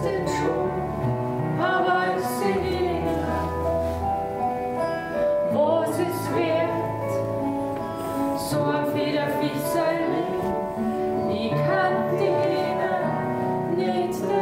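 A man and a woman singing a song together over a recorded music accompaniment.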